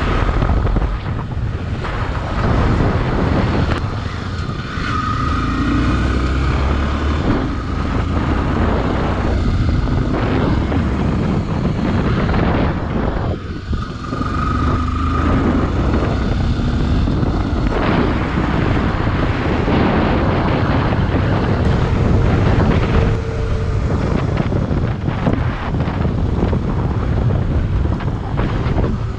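Off-road motorcycle engine running while riding, with wind buffeting the microphone. The engine note rises and falls a few times with the throttle.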